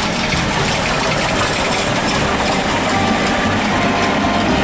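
Steam locomotive passing at speed with a train of coaches, its exhaust and wheels making a loud, steady rush.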